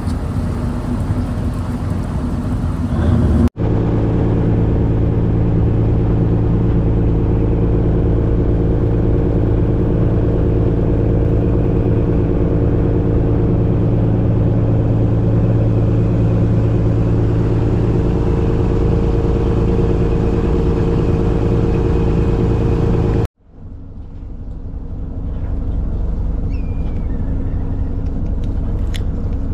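Boat engine running with a steady low hum. The sound cuts off abruptly about three and a half seconds in and again near the end, then fades back in quieter.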